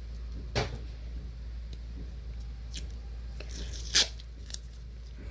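Tearing and handling noises while a paper model is taped together: two short tears, the louder one about four seconds in, over a low steady hum.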